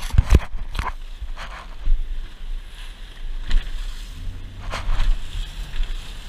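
Boat running at speed through choppy sea: wind buffeting the microphone and the hull slapping through waves and spray, with several sharp knocks, most of them in the first second. A steady low hum, like the boat's engine, comes in about four seconds in.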